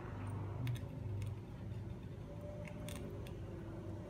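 A prairie dog eating, its chewing and gnawing giving a few sharp clicks, over a low steady hum of a car cabin.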